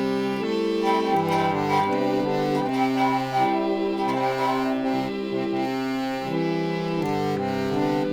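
Electric chord organ playing held, reedy chords that change every second or so, with a bass chord part and a short melody line above them.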